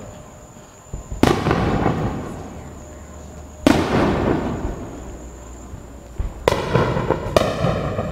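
Aerial fireworks bursting overhead with four bangs: one about a second in, one near the middle and two close together near the end. Each trails off over a second or two.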